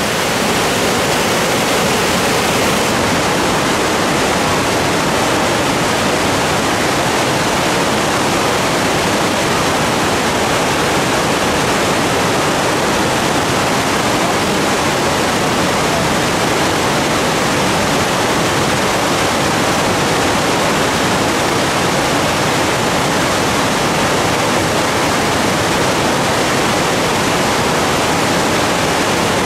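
Whitewater river rapids tumbling over rocks: a loud, steady rush of water.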